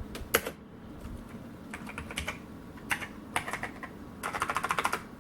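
Rosewill RK-6000 mechanical keyboard with Alps-type switches being typed on: a few scattered clacking keystrokes, then a quick run of keys near the end.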